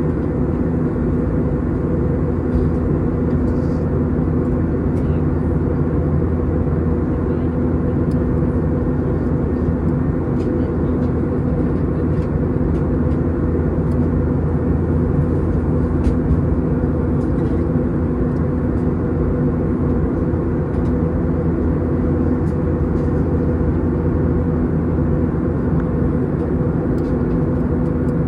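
Steady cabin noise of an Airbus A321 airborne after takeoff: rushing airflow and the drone of its IAE V2500 turbofan engines, with a held low hum that fades about 22 seconds in.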